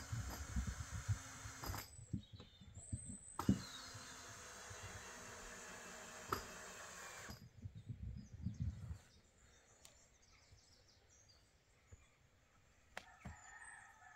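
Wind buffeting the microphone in irregular low gusts with a broad hiss for about nine seconds. It then drops to quiet outdoor ambience with a few faint clicks and short chirps near the end.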